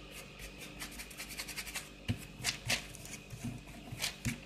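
Fingernails scratching and tapping on a crust of super glue and sprinkled powder that has set hard: a quick run of small dry clicks, then a few louder separate taps. The crisp clicking is the sign that the glue joint has cured hard.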